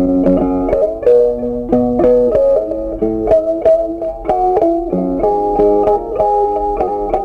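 Background music: a plucked guitar melody, a quick run of notes changing every fraction of a second.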